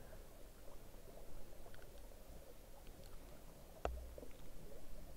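Faint trail-camera sound of wild boar moving through undergrowth by a stream, with a single sharp snap and low thump a little under four seconds in.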